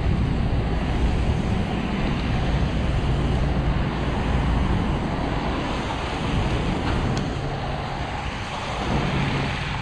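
Steady rush of wind buffeting the microphone, over the hiss of bicycle tyres rolling on wet pavement.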